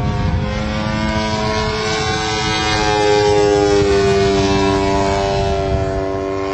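RC model airplane's motor running steadily in flight, its pitch nearly level with a slight dip early on, with wind rumble on the microphone underneath.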